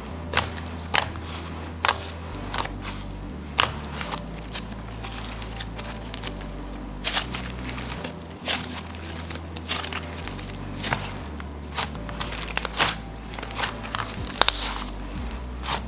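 Slime being kneaded and mixed by hand, giving irregular sharp clicks and crackles as it pops and snaps.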